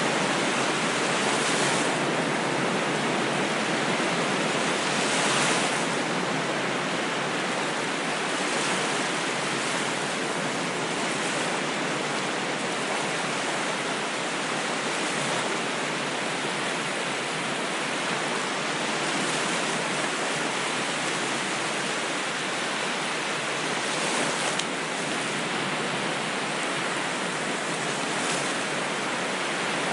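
Ocean waves washing in as a steady surf rush, with a brief louder swell of spray every few seconds.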